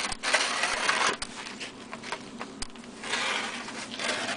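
Small plastic snow shovel scraping and pushing snow across a concrete walkway, with a few sharp knocks of the blade.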